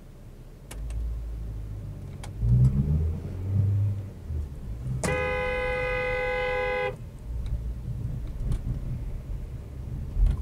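A car horn sounds in one steady blast of about two seconds, starting about five seconds in, as a warning at a car crossing close in front. Beneath it runs the rumble of the dashcam car's engine and road noise, with a few low thuds in the first half.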